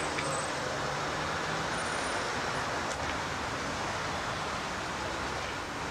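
Steady street traffic noise: an even, continuous rumble and hiss of road vehicles.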